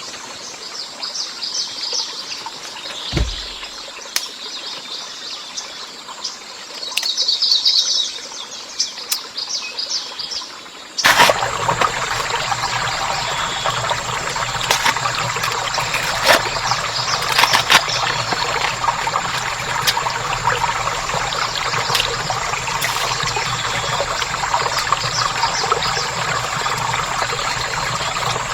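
Birds chirping over quiet jungle background, with one low thump about three seconds in. About eleven seconds in the sound cuts abruptly to louder, steady trickling water with scattered clicks.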